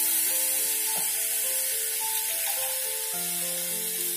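Semolina and vegetables sizzling in a hot nonstick kadai as water is poured in. Background music of slow held notes plays over it.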